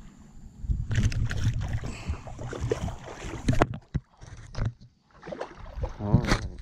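Shallow water splashing and sloshing around a wading flounder gigger and his gig, with a few sharp knocks, cutting off abruptly after a few seconds.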